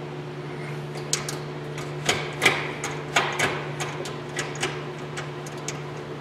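Irregular light clicks and knocks of hand tools and small metal parts being worked at a car's shifter opening, several sharper knocks close together around the middle, over a steady low hum.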